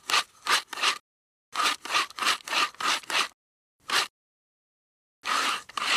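Short scraping strokes of a metal hand tool working on a tractor's metal parts. They come in quick runs of about three strokes a second, with short silent gaps between the runs.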